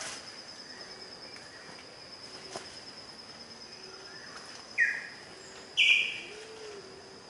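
Forest birds calling, with two loud, short calls about five and six seconds in, over a steady high-pitched insect drone. Soft low hooting notes come near the end.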